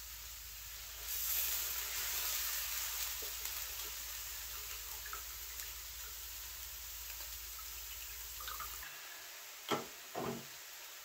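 Hot melted beeswax streaming and dripping from a nylon stocking of comb debris into a metal strainer over a pan of molten wax, the stocking straining the slumgum out of the wax. The stream swells about a second in and thins out. Near the end come two knocks about half a second apart.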